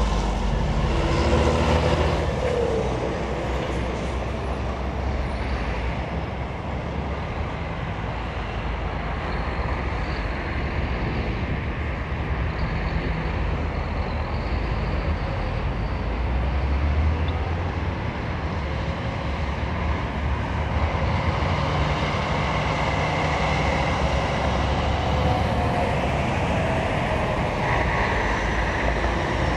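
Heavy articulated lorries passing one after another, their diesel engines running and tyres rumbling on the road, over continuous road traffic noise. The engine sound swells and fades as each lorry goes by, with another lorry approaching near the end.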